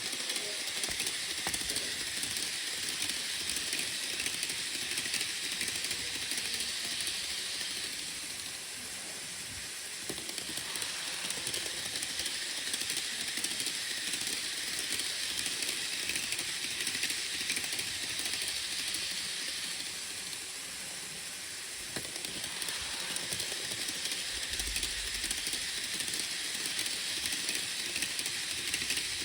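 Model railway train running on the layout track: a steady hiss of wheels and motor that eases off twice, about eight and twenty seconds in, as the train comes round the loop.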